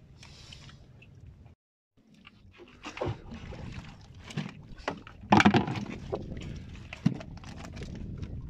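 Sea urchins and shells knocking and rattling in a mesh net basket as a hand rummages through them: irregular knocks and clatter, the loudest about five seconds in, after a brief silent gap near the start.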